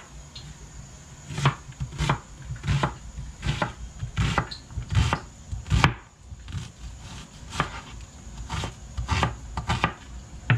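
Knife chopping vegetables on a cutting board: sharp, unevenly spaced knocks, about one to two a second.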